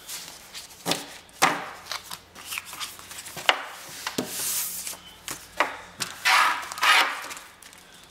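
Sticker sheets and a card-backed kit being handled on a wooden tabletop: several sharp taps as they are set down or knocked against the wood, and papery swishes as they are slid and gathered up, the loudest swish a little before the end.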